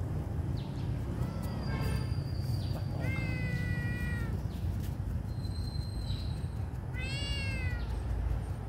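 Kitten meowing, the cries of a hungry kitten. Two short meows come in the first two seconds, then a long, drawn-out meow about three seconds in and another, falling in pitch, near the end, over a steady low background rumble.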